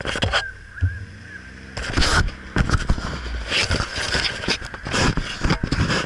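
Close handling noise from an action camera being fitted and adjusted: fingers rubbing, tapping and scraping on the camera body and mount right at the microphone. It gets busier from about two seconds in.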